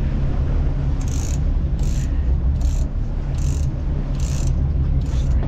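Steady low rumble of the sportfishing boat's engine, with a short high-pitched rasp about every 0.8 seconds, six in all, from the fishing reels and line as the kite lines are stroked up and down by hand.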